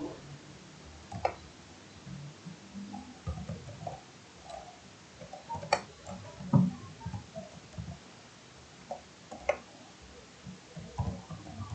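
Slow, sparse typing on a computer keyboard: a few sharp key clicks spaced seconds apart among soft low knocks.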